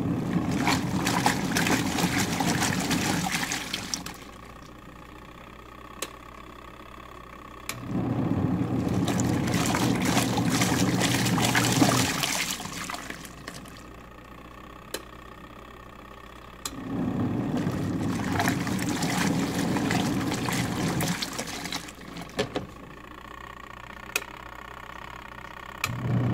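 Twin tub washing machine's wash tub agitating work pants in water. The motor runs in stretches of about four seconds, water sloshing, with pauses of about four seconds between runs in which water trickles and drips.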